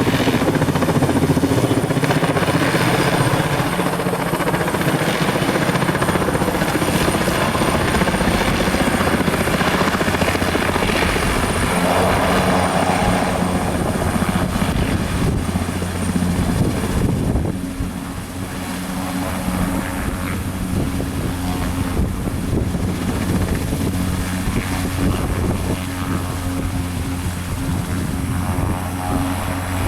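Sikorsky S-58ET helicopter running, its Pratt & Whitney Canada PT6T-3 Twin-Pac turboshaft and main rotor making a loud, steady sound with a thin high whine over it. About 17 seconds in, the sound drops a little and becomes duller, then carries on steadily.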